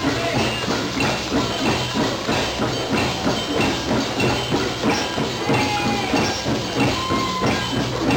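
Drum circle: many hand drums, djembes and frame drums among them, played together in a dense, steady rhythm of strikes.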